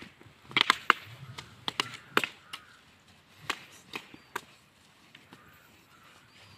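Irregular sharp clacks and knocks of bamboo silambam staffs handled and struck during a stick-fighting drill. They are thickest in the first two and a half seconds, with a few scattered knocks after that.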